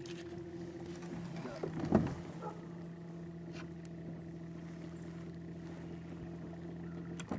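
Electric trolling motor on a bass boat humming steadily at one pitch, cutting off near the end. A single loud knock sounds about two seconds in.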